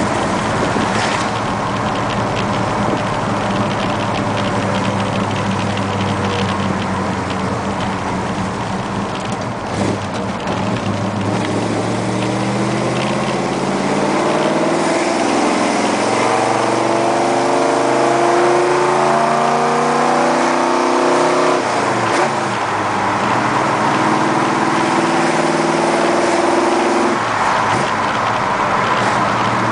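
1971 Plymouth Satellite's 360 V8, heard from inside the cabin while driving. It runs at a steady low note for about twelve seconds, then accelerates with a rising note for about ten seconds. The note falls suddenly a little past the middle, runs steady again, and drops once more near the end.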